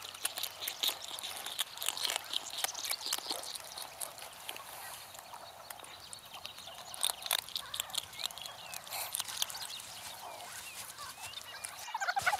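A foraging meerkat close by: a run of quick crackling clicks, with a few short squeaky calls about eight to ten seconds in.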